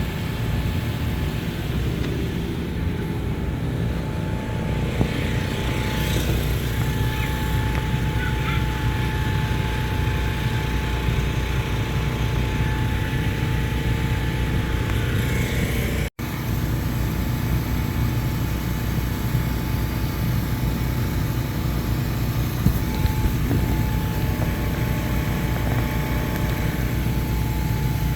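Inflatable bounce-house blower fans running steadily: a continuous loud hum with a faint steady whine, with a brief break about halfway through.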